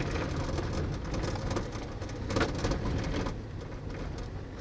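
Car rolling slowly along a dirt and gravel track, heard from inside the cabin: steady low road and engine rumble with tyres crunching over loose stones, making scattered small clicks.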